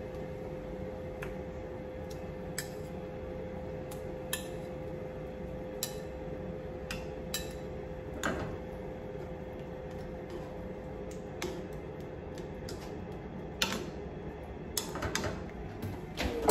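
A fork clinking and tapping against a ceramic plate and a metal frying pan, a dozen or so scattered clicks, as cooked meat cutlets are moved one by one into the pan of sauce. A steady low hum runs underneath.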